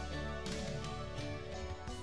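Music: sustained pitched chords over a steady bass note, with a struck percussive accent about half a second in and another near the end, slowly getting quieter.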